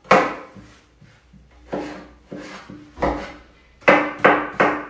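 A kitchen knife chopping a raw potato into small pieces on a cutting board: about seven sharp knocks of the blade hitting the board. One comes at the start, then a pause of over a second, then the strokes come faster toward the end.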